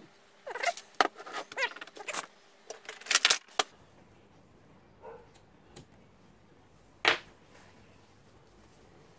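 Clicks, rattles and short scrapes of loudspeaker parts and multimeter test leads being handled on a workbench, then a single sharp click about seven seconds in.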